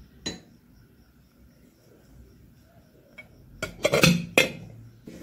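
A ceramic plate being set over a glass bowl as a lid: a quick run of clinks and a clatter of china against glass about four seconds in, after a single sharp knock near the start.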